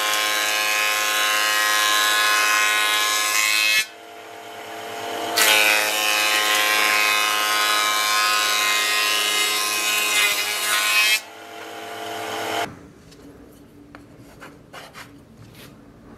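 Circular saw of a combination woodworking machine ripping wooden boards, with a pitched whine. There are two cuts of several seconds, and the sound falls quieter between and after them. Near the end the sound cuts off suddenly, leaving only faint taps.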